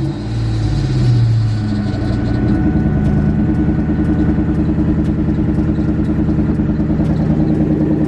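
Ford 4.6 modular V8 having just started, its revs flaring up and falling back in the first couple of seconds, then settling into a steady, rhythmic idle, heard from the driver's seat. It is running on freshly replaced spark plugs and its old coil packs while being checked for a misfire, and it doesn't sound great right now.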